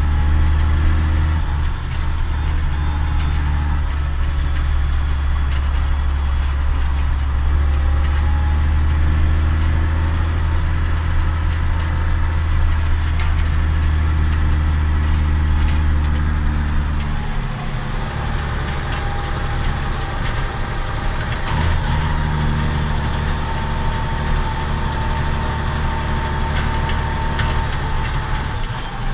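Case IH Magnum 7140 tractor's six-cylinder diesel engine running steadily. Its note shifts and it gets slightly quieter a little past halfway, and a faint whine rises over it near the end.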